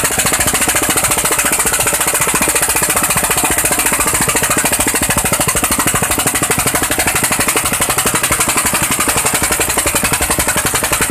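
Eicher 241 tractor's single-cylinder diesel engine working hard under full load while hauling a loaded trolley, a fast, steady, even stream of loud exhaust beats.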